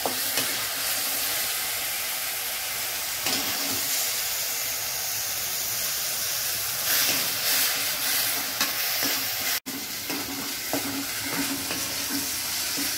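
Chopped onions and tomatoes sizzling in hot oil in a steel kadai while a perforated metal spatula stirs and scrapes them around the pan, sautéing them soft. The sizzle is a steady hiss, with a momentary break about ten seconds in.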